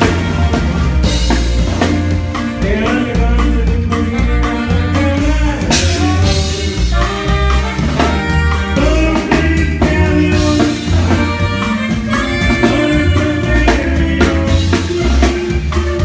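Live conjunto band music: accordion melody over a steady bass and drum-kit beat.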